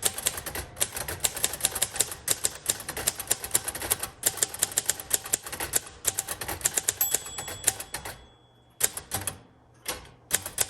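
1956 Royal Quiet Deluxe manual typewriter typing, with fast, even key strikes for about eight seconds and a faint ringing note near the end of the run. After a short pause come a few separate heavier clacks.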